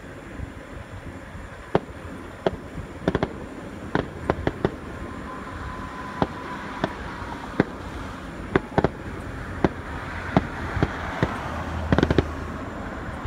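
Fireworks going off: a string of sharp bangs and pops at irregular intervals, with a quick cluster of them near the end. A faint high whistle slides slowly down in the middle.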